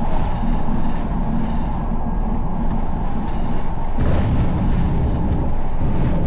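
Bombardier Global Express on its landing roll: a steady low rumble of its Rolls-Royce jet engines and wheels on the runway. About four seconds in, the rumble gets louder as the sound switches from the cockpit to the cabin beside the wing.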